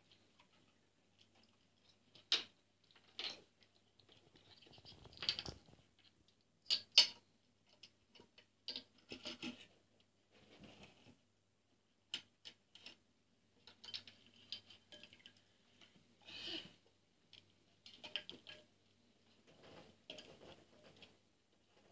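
Raccoon paddling its front paws in a bowl of water in a stainless steel sink: irregular splashing and sloshing, with sharp knocks of the ceramic bowl against the steel, the loudest about two and seven seconds in.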